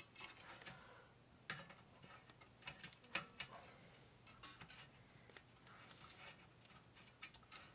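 Faint, scattered clicks and taps as a small metal part is tried against the chassis of a scale RC truck.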